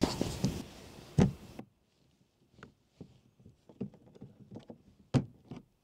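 A flathead screwdriver twisting the plastic fasteners of a Tesla Model 3's underbody quick-access panel: a scraping rustle with a knock about a second in, then scattered light plastic clicks and taps.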